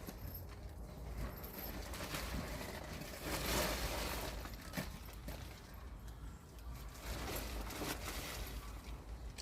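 Rustling and handling noises of a greenhouse's plastic covering being worked by hand, with scattered small clicks, louder about three and a half seconds in.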